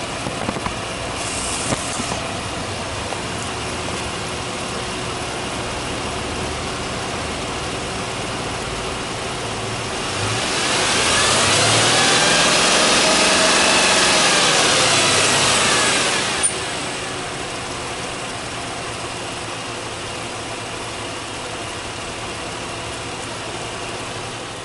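Subaru Legacy 3.0R's EZ30 3.0-litre flat-six idling, then revved once about ten seconds in. The revs rise, hold for about six seconds, and drop back to idle.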